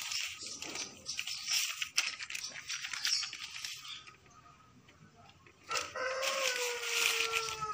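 A rooster crows once near the end: one long call that slides slowly down in pitch. Before it there is crackly rustling, then a short lull.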